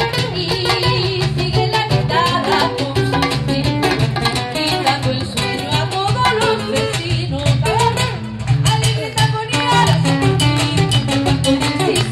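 Live Latin American music through a PA: a woman singing with nylon-string acoustic guitar and cajón accompaniment, with steady percussive strokes under the melody.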